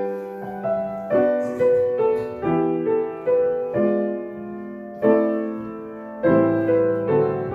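Piano playing the introduction to a hymn: full chords struck about once a second, each ringing and fading before the next.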